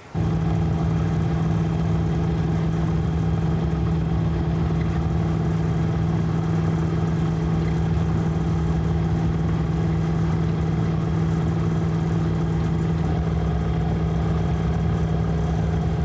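Small boat's outboard motor running steadily at an even speed, a constant droning hum with no change in pitch.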